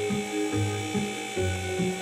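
Background music with a steady, pulsing bassline, a low note a little more than twice a second, over sustained high tones.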